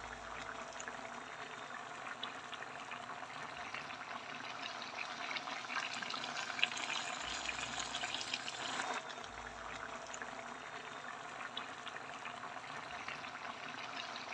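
Crabs and squash simmering in coconut milk in a pan: a steady bubbling sizzle with many small crackles and pops.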